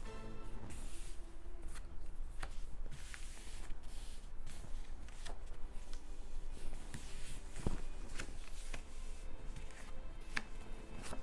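Tarot cards being dealt onto a cloth-covered table: soft paper slides and rustles as cards are drawn and laid face up one by one, with a handful of short sharp taps as each card lands.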